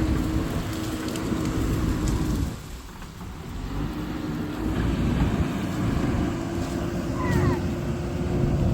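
Diesel engine of an earthmoving machine, such as an excavator, working to fill the road, with a steady hum over a low rumble. The engine eases off about two and a half seconds in, then builds back up to full working speed.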